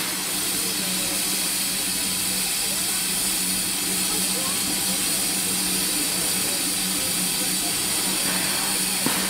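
Geared Shay steam locomotive idling, steam hissing steadily from around its vertical cylinders, with a steady low hum underneath.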